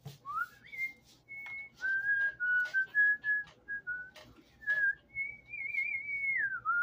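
A person whistling a wandering tune: a single clear note that slides up at the start, holds and steps between pitches, then warbles and dips near the end, with faint clicks underneath.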